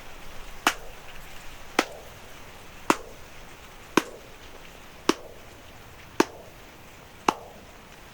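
Hand claps, seven in an even rhythm about one a second, each followed by a short echo off a field of identical corn plants that falls in pitch as it dies away.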